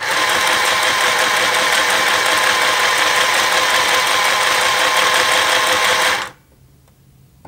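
A cheap mini sewing machine's small motor runs steadily at full speed for about six seconds to wind the bobbin, then cuts off abruptly. It is a high, even whine.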